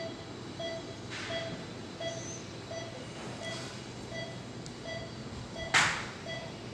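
Anaesthesia patient monitor beeping the pulse, a short mid-pitched beep about one and a half times a second, over steady operating-room hum. Near the end comes a short, sharp burst of hiss, the loudest sound.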